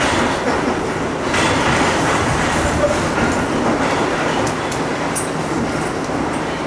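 R62A subway car running through a tunnel, heard from inside the car: a steady loud rumble of steel wheels on the rails, with a few sharp clicks in the second half.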